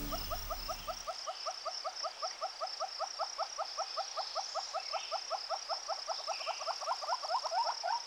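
Hornbills calling: a rapid, even run of short clucking notes, about six a second, building louder toward the end, over a steady high insect buzz. Background music fades out about a second in.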